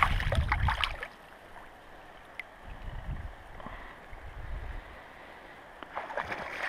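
Water splashing in a shallow river for about a second, then the faint rush of running water with a few soft low swells. Splashing starts again near the end.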